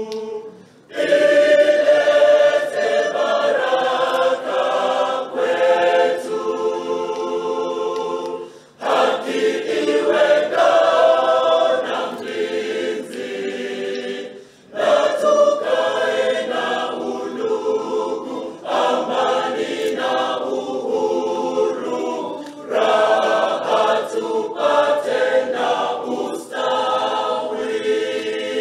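A group of voices singing together as a choir, in sung phrases of about four seconds with short breaks between them.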